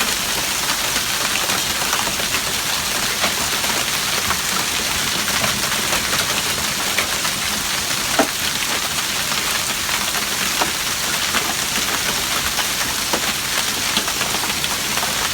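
Hail coming down: a steady hiss of falling ice and rain, dotted with many sharp ticks of hailstones striking, and one louder hit about eight seconds in.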